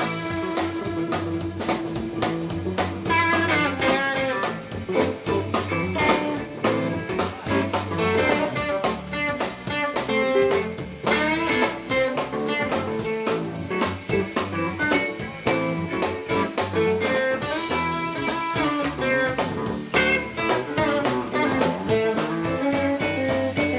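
Live blues band playing an instrumental passage: electric guitar lines over a steady drum beat.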